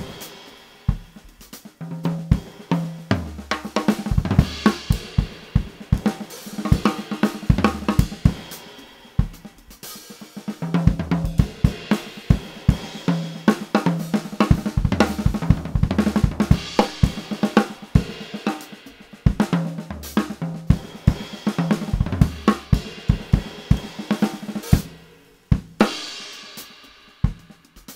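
Gretsch drum kit with Meinl cymbals played in a continuous groove: kick, snare, hi-hat, toms and cymbals. It is a raw recording from one overhead and one kick-drum microphone, with no EQ, compression or other effects.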